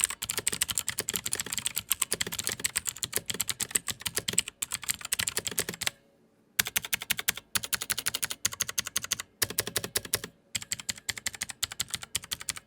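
Typing on a Gamdias Hermes E2 tenkeyless keyboard with clicky blue mechanical switches: a fast, continuous run of key clicks, with a brief pause about six seconds in.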